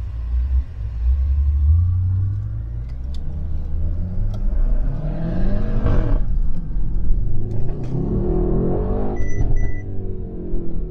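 Twin-turbo V8 sports sedan accelerating hard: a low rumble, then the engine note climbs through a gear, drops sharply at an upshift about six seconds in, and climbs again.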